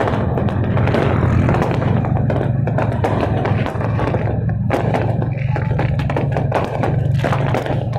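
New Year's Eve fireworks popping and crackling in many quick sharp bangs, over a steady loud low rumble.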